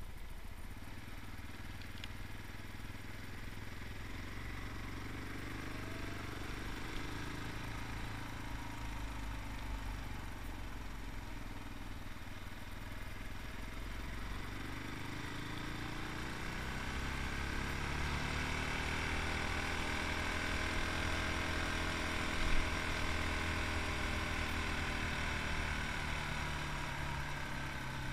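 Yamaha MT-03's 660cc single-cylinder engine running on the move, its pitch rising and falling with the throttle. The engine note climbs about halfway through and then eases slowly down, with a brief thump about three-quarters of the way in.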